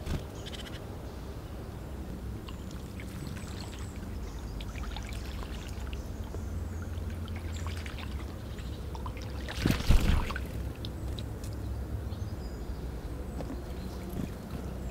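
Small songbirds at a woodland pond giving short, faint chirps and ticks over a low steady rumble. About ten seconds in comes a brief, louder splash of water, such as a bird bathing at the edge.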